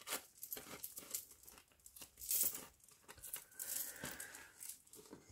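Thin paper napkin rustling and tearing between the fingers: a run of short, irregular crackles, loudest about two and a half and four seconds in.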